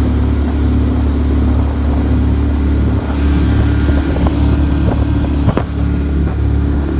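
Boat's outboard motor running steadily with a deep, even drone while underway. A few light knocks in the second half, the sharpest about five and a half seconds in.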